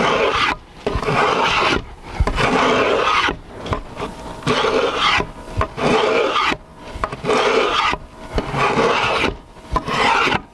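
Hand spokeshave cutting Western red cedar along a canoe paddle blade. A run of rasping shaving strokes, each about a second long with short pauses between, taking off curled shavings.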